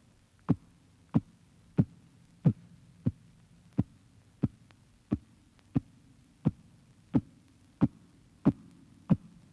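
Soundtrack sound effect: single sharp electronic pulses, evenly spaced about two-thirds of a second apart, each dropping quickly in pitch, over a faint low hum.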